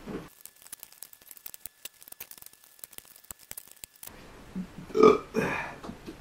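A loud burp about five seconds in, followed by a shorter one, after a few seconds of faint scattered clicks.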